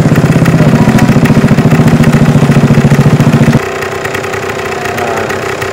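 Small motorbike engine running close by, loud with a fast even pulsing, then dropping suddenly to a quieter steady running about three and a half seconds in.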